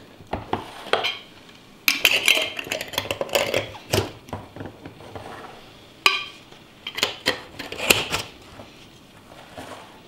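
Metal twist-off lids being screwed tightly onto glass jars, in several bursts of scraping and clinking with short pauses between.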